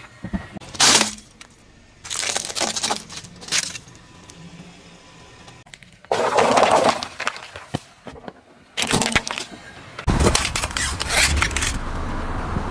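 A car tyre crushing small objects on asphalt in a series of short separate clips: sharp cracks and crunches, a loud crumpling about six seconds in as it rolls onto a row of paper cups, and denser crackling over a low rumble near the end.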